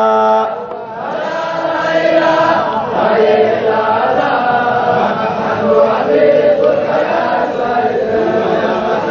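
Sufi Qadiriya dhikr chanting in Arabic. A single man's voice holds a note and stops about half a second in, then a group of men chants together, their overlapping voices rising and falling in a repeated phrase.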